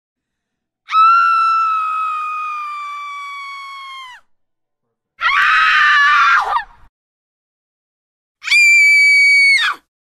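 Three separate female screams with silence between them: a long, high one of about three seconds that slowly drops in pitch and fades, then a shorter, rougher one, then a brief, higher, steady one near the end.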